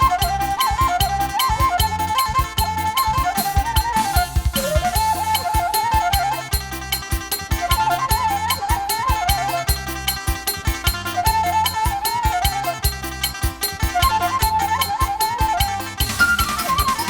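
Batak Toba ceremonial music: a single high melody with quick trills and runs, over a fast, steady drum beat and a repeating bass pattern.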